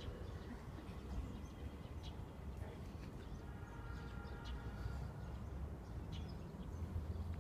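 Quiet open-air ambience of a large kneeling crowd: a steady low rumble with a few faint clicks, and a faint held tone with overtones for a second or two about halfway through.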